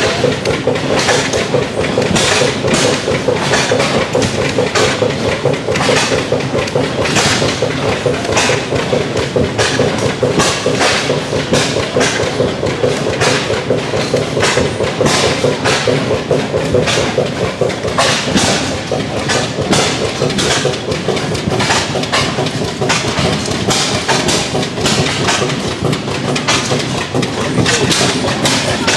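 Rodline-driven oil well pumping jack working, its iron linkage and rod knocking roughly twice a second over the steady running of the 20 HP Superior oilfield engine that drives the rodline.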